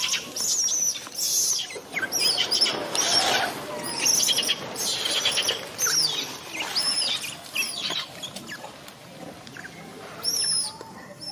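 A baby macaque's high-pitched squealing cries, a string of short calls that arch up and fall away, coming irregularly with a quieter stretch near the end before one more cry.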